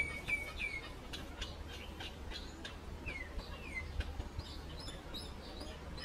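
Common myna calling: a run of short repeated whistled notes, two downward-sliding whistles about three seconds in, and higher chirps near the end.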